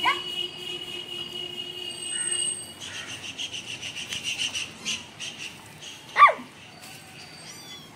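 Kitten meowing: a short meow at the start and one loud, rising-then-falling meow about six seconds in. Between them, a high steady tone gives way to a fast, high chirping.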